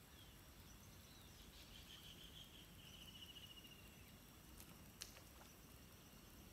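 Near silence: faint outdoor ambience, with a faint high trilling call of quick repeated notes from about one and a half to three seconds in, and a soft click about five seconds in.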